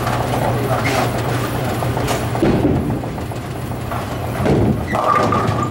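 Steady low rumble of a bowling alley: bowling balls rolling down wooden lanes and pinsetter machinery running, with a sharp clack about two seconds in.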